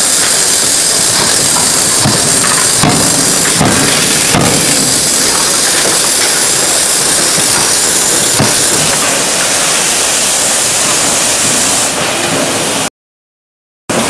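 Loud steady hissing at a forging hammer's die, with a few light metallic knocks in the first half. The sound cuts out for about a second near the end, then returns.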